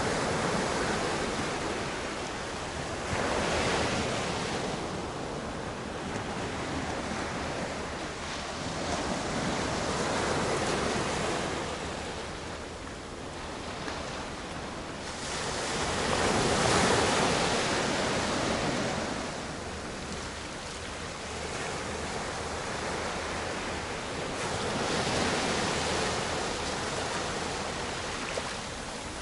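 Sea surf: small waves breaking and washing over a flat rocky shore, the rush swelling and falling away every several seconds, loudest about two-thirds of the way through.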